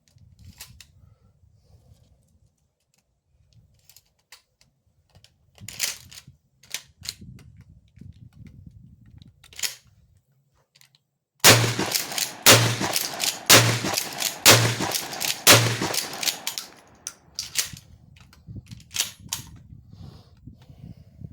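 Mossberg 500 12-gauge pump-action shotgun fired five times, about a second apart, with the pump worked between shots. Before the shots there are scattered metallic clicks and clacks of gun handling, and after them a few more.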